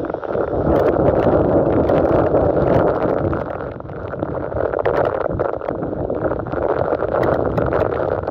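Torrential rain and gusting wind of a severe thunderstorm, a loud steady rush that swells about a second in, eases near four seconds and builds again.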